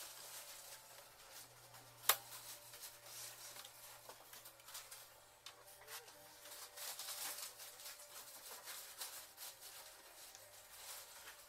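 Cotton swab rubbing and scraping in the film channel of a Eumig R2000 film projector, with small handling clicks and one sharp click about two seconds in.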